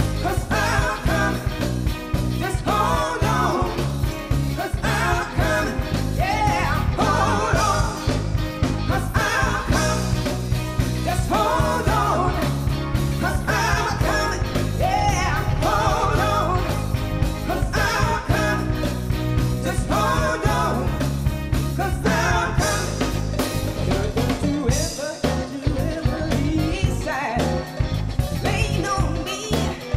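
A band playing an upbeat song: a singer's voice over bass, drums and electric guitar. The bass thins out over the last few seconds.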